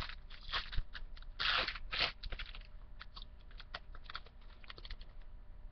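Baseball card pack being handled: a wrapper crinkling and cards rustling and sliding against each other, a run of short, irregular crackles. The crackles are thickest about one and a half to two seconds in, then thin out to scattered ticks.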